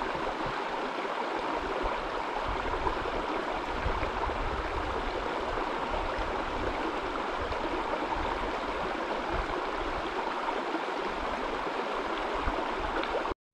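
A stream running steadily under a bridge, a constant rushing of water that stops abruptly near the end.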